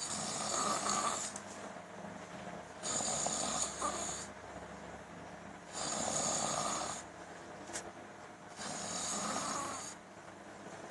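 A person snoring: four long snores about three seconds apart, with quieter breathing in between.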